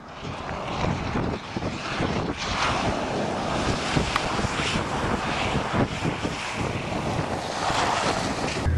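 Ford truck ploughing through floodwater at speed, throwing up a big splash: a long rushing of water spray close by, building about a second in and swelling several times, mixed with wind on the microphone.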